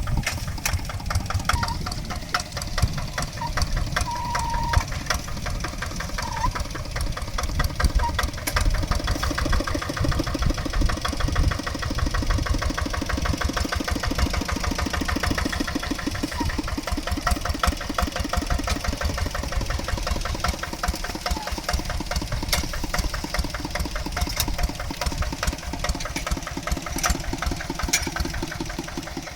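Kubota RD65 DI single-cylinder diesel engine on a hand tractor, running steadily with a fast, even beat of firing pulses.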